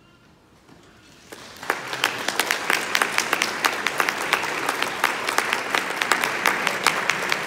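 Audience applause breaking out after a quiet second and quickly building into steady, dense clapping at the close of a concert band piece.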